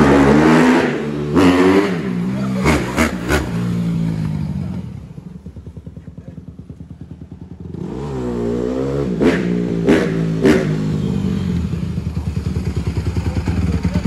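Honda CRF150R dirt bike's single-cylinder four-stroke engine revved several times with a few sharp cracks, dropping back to a fast, pulsing idle around the middle. It is revved again and settles into idle near the end.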